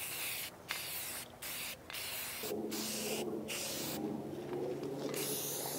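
Aerosol spray can of bare-metal primer hissing in a series of short sprays with brief breaks between them, one longer spray past the middle.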